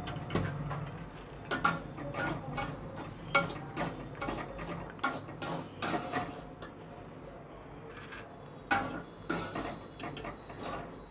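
A sieve scraping and knocking against an iron kadai as it scoops popcorn out of hot salt, with the salt rattling. Irregular sharp clicks, a few a second, quieter for a moment about two-thirds of the way through.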